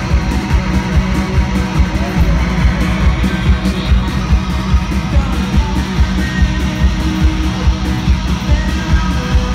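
Live rock band playing: electric guitar over bass and drums with a steady driving beat.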